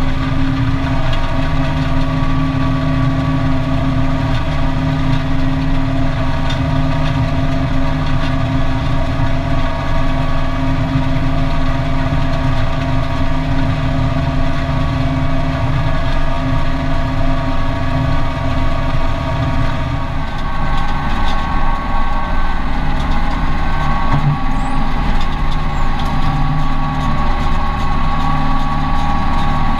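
Case 4240 Pro tractor's diesel engine running steadily under load while driving an Orkel GP 1250 round baler, heard from inside the tractor cab. The steady whine of the machinery shifts in pitch about two-thirds of the way through.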